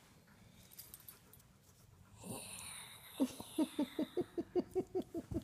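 Dog play-vocalizing in a quick run of short pitched grunts, about five a second, starting about three seconds in and each dipping in pitch. A breathy huff comes just before.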